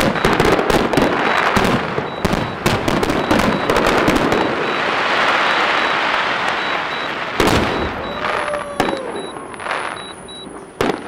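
Fireworks display: a rapid string of shell bursts and pops, then a dense, continuous crackle in the middle, a louder bang about seven and a half seconds in, and a few last scattered bursts as the show dies away.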